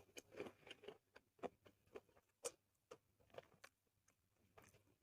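A person chewing food close to the microphone: irregular wet clicks and smacks, several a second, while eating soy-sauce chicken with its skin.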